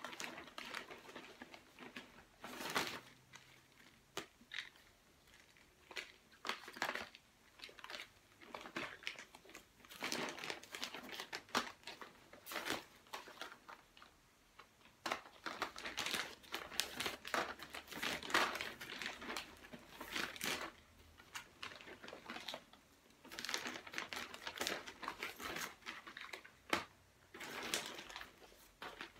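Plastic mailer bag rustling and crinkling in irregular bursts as small product boxes are pulled out of it and handled.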